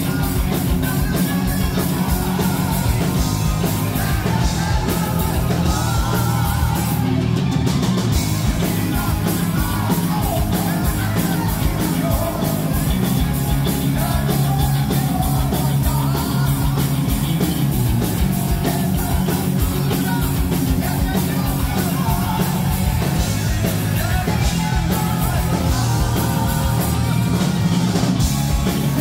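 Heavy metal band playing live and loud: a male singer over distorted electric guitar, bass and a steady drum beat.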